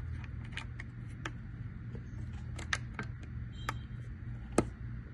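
Scattered small clicks and taps of fingers handling the metal cap and nut on top of an electric wheelchair's front caster stem, irregular and unevenly spaced, the sharpest near the end, over a steady low hum.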